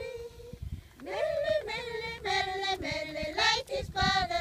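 Group of women singing a folk song together, holding and sliding between sustained notes. The singing dips briefly at the start and picks up again about a second in.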